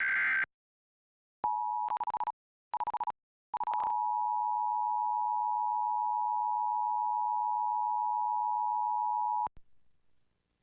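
Emergency Alert System broadcast: the tail of the digital header data burst, then the two-tone EAS attention signal. The tone cuts out twice in its first two seconds, breaking up from choppy over-the-air reception, then holds steady for about six seconds and stops abruptly.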